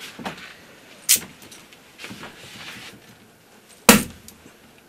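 A cloth money pouch set down on a table, landing with one sharp knock just under four seconds in, after a few lighter clicks and rustles.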